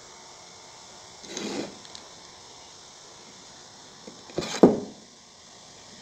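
Hollow bamboo tube being handled on a hard floor: a short scrape about a second and a half in, then a louder knock and scrape near the end as the tube is picked up.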